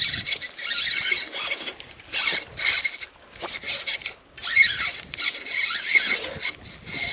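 Fishing reel's drag buzzing in several bursts as a hooked fish pulls line off the spool.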